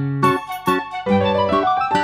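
Instrumental intro of a children's song, played on keyboard. It is a bright melody of short struck notes over bass notes, with a run of notes climbing upward in the second half.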